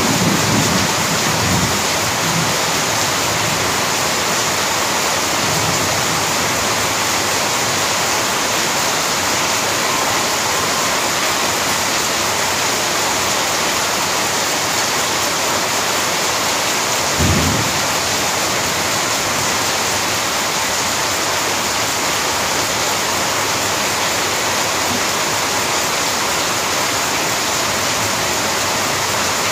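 Heavy rain pouring steadily onto a paved yard and pots, a dense unbroken hiss. A brief low thump about seventeen seconds in.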